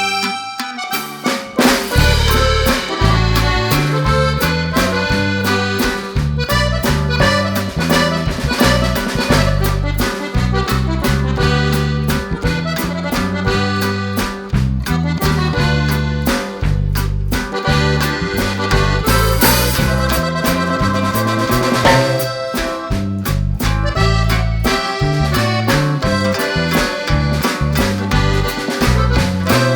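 Background music with an accordion lead over a steady, rhythmic bass line.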